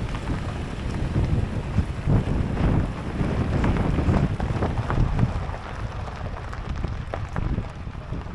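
Wind buffeting the microphone: a gusty, uneven rumble heaviest in the low end, rising and falling in strength, a little weaker near the end.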